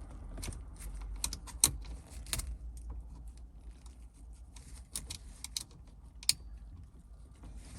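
Scattered sharp clicks and taps of hard plastic and metal as a car's touch-screen display unit is handled and screwed back into the dashboard, two clicks louder than the rest.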